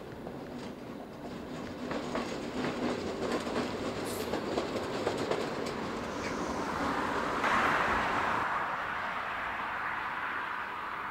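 Diesel shunting locomotive running past with no wagons: its wheels click over rail joints and switches, then its engine grows loudest about halfway through as it passes close by, and slowly fades.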